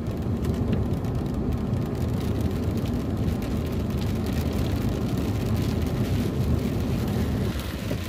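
Steady engine and road noise inside the cabin of a moving car.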